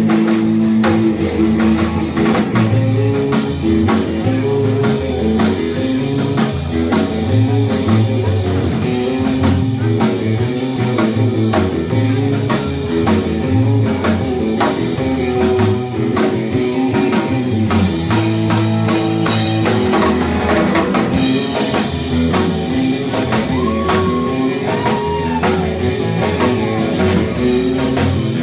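Live instrumental surf rock: two electric guitars and a drum kit playing a steady, driving beat.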